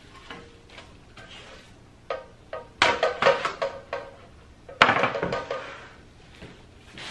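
Metal baking pans clattering and clanking as they are handled and set down. There are a few light knocks, then two loud bursts of ringing clanks about three and five seconds in.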